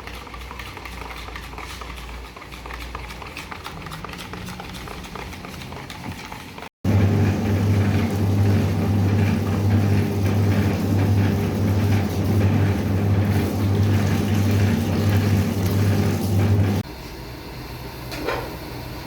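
A machine's electric motor humming loudly and steadily for about ten seconds, starting and stopping abruptly, after a stretch of quieter, mixed working noise.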